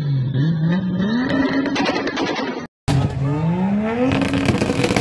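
Toyota Supra Mk3 engine revving up and down, then climbing and holding at high revs while the tyres spin in a burnout. After a sudden cut, a Supra's revs climb and hold steady on a two-step launch limiter, with rapid pops and crackles from the exhaust.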